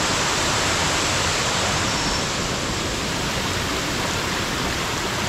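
A waterfall rushing: a steady, even sound of falling water.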